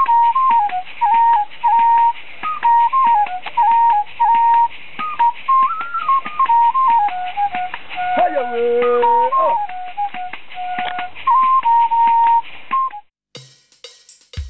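A small handheld wooden flute playing a lively stepping melody, over a steady rapid clicking from hand percussion. A man's voice joins with a held sung note about eight seconds in, and the playing stops abruptly about a second and a half before the end.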